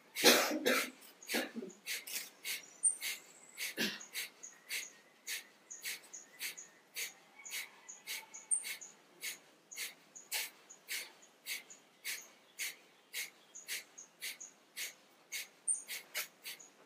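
Kapalabhati yoga breathing: short, forceful puffs of breath expelled through the nose in a steady rhythm, about two a second, each pushed out by a sharp pull of the belly. The first breath, right at the start, is the loudest and longest.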